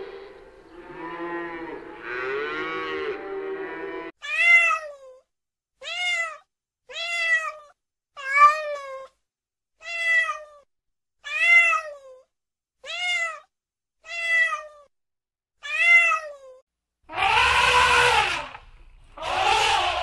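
A calf calling, then a kitten meowing nine times in short, evenly spaced mews, then a loud elephant call in the last few seconds.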